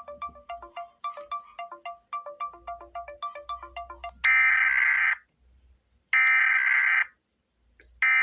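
Synthesized emergency-alert tones: a quick ringtone-like melody of short electronic beeps, about four notes a second, then from about four seconds in loud buzzing digital data bursts about a second long, repeating with a gap of about a second, in the manner of the SAME header bursts that open an Emergency Alert System message. There are two full bursts, and a third begins near the end.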